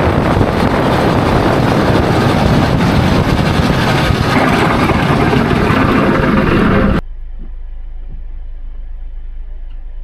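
Snowplow truck engine and plow passing in a heavy snowstorm, with strong wind noise on the microphone; the sound is loud and even. About seven seconds in it cuts off abruptly to a much quieter low rumble.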